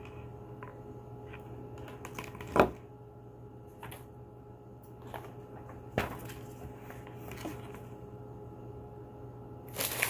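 Small decorative stones clacking one at a time as they are set into the plastic basin of a tabletop water fountain: a few scattered knocks, the sharpest between two and three seconds in.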